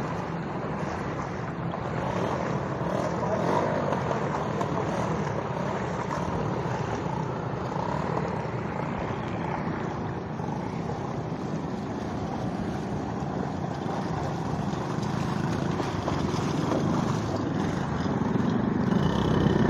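A vehicle's engine running steadily as it moves through a flooded street, mixed with the wash of water.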